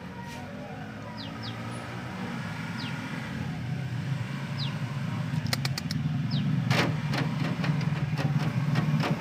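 A motor vehicle engine runs steadily and grows louder, with short high bird chirps and a few sharp clicks over it.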